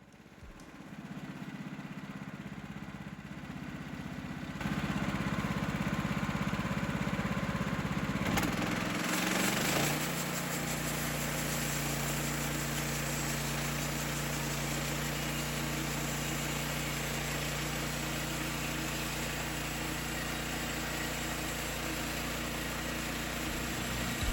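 Small gasoline engine of a bandsaw sawmill running steadily. It gets louder about four seconds in, and its pitch shifts around ten seconds in before settling into a steady run.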